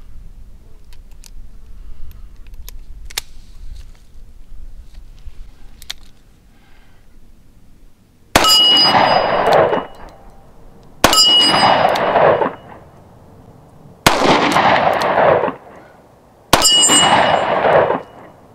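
Small clicks of a revolver being handled and loaded, then four shots from a Taurus 605 Protector Poly .357 Magnum revolver with a 2-inch barrel, spaced about two and a half to three seconds apart. Each shot rings on for about a second and a half.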